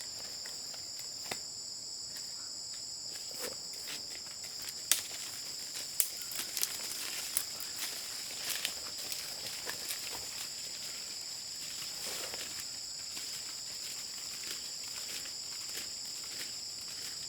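Steady high-pitched insect chorus, a continuous two-tone buzz. Scattered sharp clicks and knocks sound over it, loudest about five and six seconds in.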